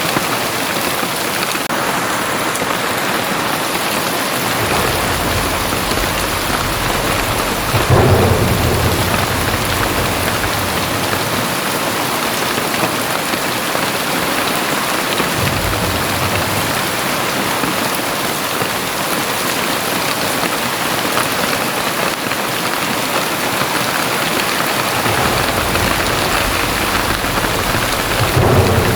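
Very heavy rain pouring steadily, with low thunder rumbling several times, the loudest roll about eight seconds in and another building near the end.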